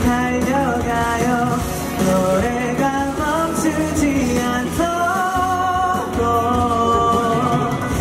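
Music playing: a voice singing a melody over an instrumental backing, with longer held notes in the second half.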